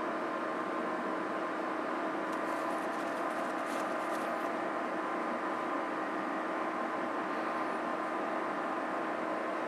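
Homemade vacuum cleaner driven by eight 12-volt DC fans running steadily: an even whir with a steady hum of fan tones.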